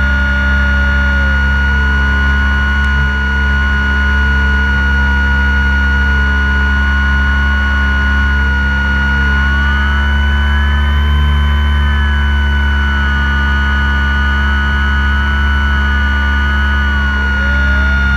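RC model airplane's motor and propeller heard from a camera on board the plane, running at a constant throttle: a steady drone with a high whine on top. Fainter tones waver and glide up and down over it.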